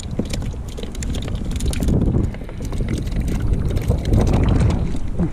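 Wind buffeting the action camera's microphone in an uneven low rumble, with many small clicks and knocks from the kayak and fishing gear.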